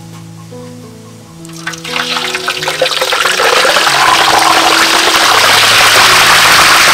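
A whole fish going into a wok of hot oil. The oil starts sizzling about a second and a half in and builds to a loud, steady deep-fry sizzle, with background music underneath.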